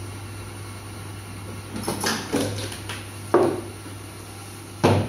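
Battery spot welder firing on nickel strip across cylindrical lithium-ion cells: a few sharp clacks, the two loudest about a second and a half apart near the end, over a steady hum.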